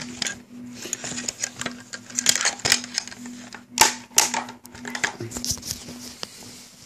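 Handling noise from an AK-47 underfolder stock being opened: rustling and scraping with a run of sharp metal clicks and clacks, the loudest about four seconds in.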